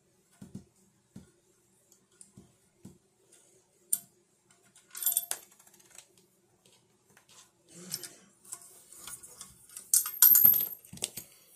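Small metal parts clicking and clinking as bolts are fitted into a metal mic adapter module by hand, with scattered knocks and handling noise. The loudest burst of handling comes about ten seconds in.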